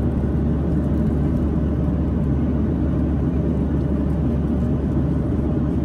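Steady cabin drone inside a Boeing 737-800 in cruise, the engines and the rush of air over the fuselage blending into an even low roar.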